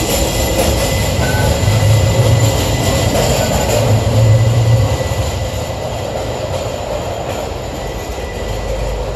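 Portland Streetcar (electric tram) running past along the street, a steady rumble with a low hum that swells twice, about two and four and a half seconds in.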